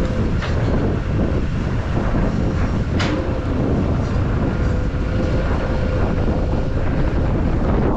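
Heavy construction machine's diesel engine running steadily under load, a dense low rumble with a faint steady whine over it. A sharp metallic clank comes about three seconds in.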